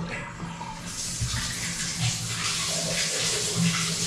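Water rushing out of a newly installed bathtub through its opened pop-up drain, a steady gush that sets in about a second in. The tub is being drained to test the new drain connections for leaks.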